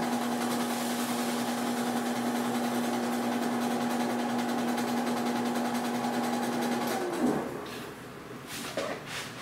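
Benchtop laboratory seed cleaner running with a steady hum as its wire-covered cylinder strips the awns from barley seed. About seven seconds in it is switched off with a click, and its pitch falls as it spins down, followed by a few light knocks.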